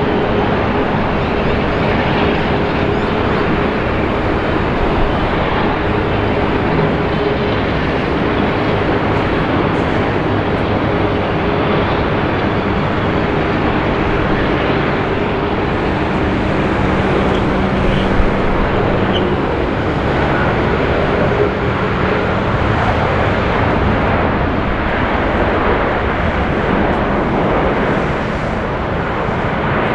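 Twin turbofan engines of an Airbus A330 MRTT (RAAF KC-30A) tanker, General Electric CF6-80E1 engines, running during the final approach, touchdown and rollout. The noise is loud and steady throughout, with a low steady hum under it that fades out about two-thirds of the way through.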